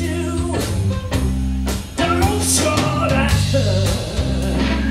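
Live blues-rock band playing: electric guitar, electric bass and drum kit, with a man singing. The band dips briefly and comes back in louder about two seconds in.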